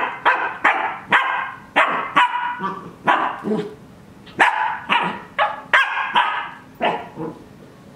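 Cardigan Welsh Corgi puppy play-barking: a quick string of about fifteen short, sharp barks that stops about seven seconds in.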